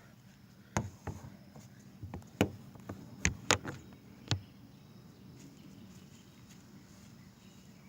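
Handling noise from a tablet being propped up: a few sharp knocks and taps on the device, bunched in the first half, then only a faint steady background.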